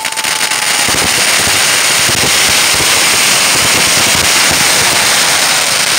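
Ground-level fireworks crackling: a loud, dense, continuous crackle of countless small pops, with a brief whistle in the first second.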